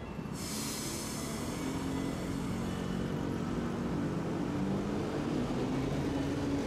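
Tosaden streetcar heard from on board: a hiss starts suddenly about a third of a second in, and a low motor whine climbs slowly in pitch as the tram picks up speed.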